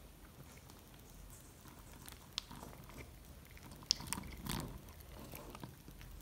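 A cat eating from a bowl: faint chewing with scattered small clicks, the sharpest just before four seconds in.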